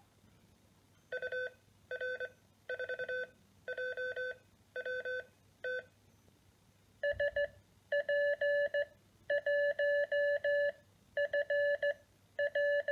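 Code practice oscillator in Morse tutor call-sign mode, beeping random call signs in Morse through its small built-in speaker. Each call sign comes at a slightly different pitch: a lower tone for the first few groups, then after a short pause a slightly higher tone from about seven seconds in.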